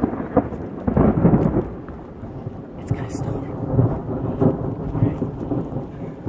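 Thunder rumbling as a thunderstorm moves in, with light rain starting to fall; the rumble swells and fades, loudest about a second in and again around four seconds in.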